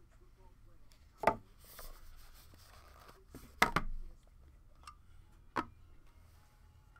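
Hands handling a cardboard trading-card box and its cards: three sharp knocks as box and cards are set down or tapped on the table, the middle one a quick double, with light rubbing and shuffling in between.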